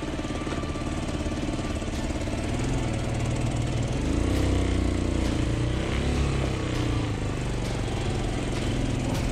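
Motorrad TTX150's single-cylinder 150 cc engine working under load, its revs rising about four seconds in and then falling and rising again, as the bike struggles through a slippery stretch of trail.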